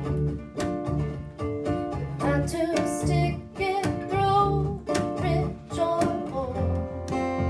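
Live acoustic band: a woman singing over a strummed ukulele and acoustic guitar, with an upright bass underneath.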